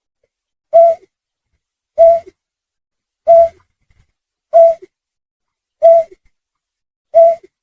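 Snipe call used as a hunting lure: one short call repeated six times, about one every 1.3 seconds, each a clipped note followed by a fainter, lower one.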